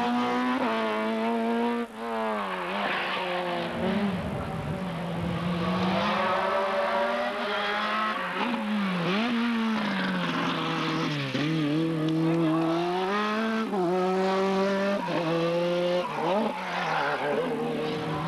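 Rally cars driven flat out on a tarmac stage, one after another, engines revving up and dropping back sharply again and again through gear changes.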